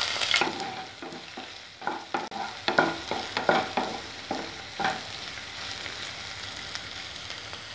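Shallots, garlic, ginger and green chillies sizzling in hot coconut oil with mustard seeds in a nonstick pan, stirred with a spatula: a steady sizzle with the spatula scraping and knocking against the pan from about one to five seconds in.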